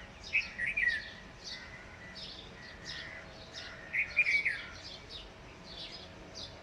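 Birds chirping: a run of short, high chirps, with louder bursts of chirping about half a second in and again about four seconds in.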